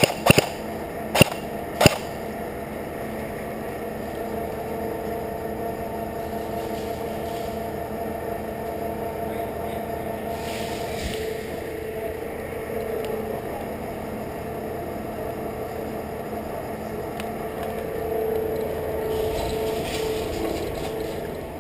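Four sharp airsoft gun shots in the first two seconds, then a steady mechanical hum with a faint even tone that swells a little near the end.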